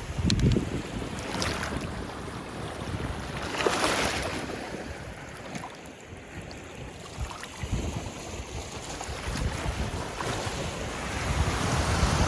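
Small lake waves washing onto the shore, swelling and fading every few seconds, with wind rumbling on the microphone.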